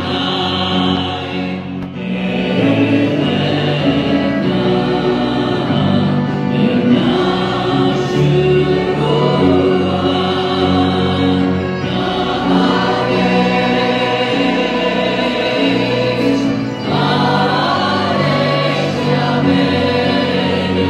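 A congregation singing a slow worship song together with musical accompaniment, held notes changing every second or two over a steady bass.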